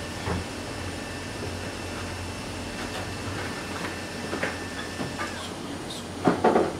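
Steady machine hiss and hum, with thin high whining tones and a few faint clicks. A short cluster of louder knocks about six seconds in, as the board under the microscope is handled.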